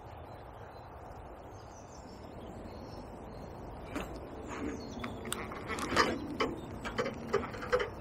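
Steady rush of a small flowing river with faint birdsong; in the second half a run of irregular clicks and knocks, the loudest about two seconds before the end.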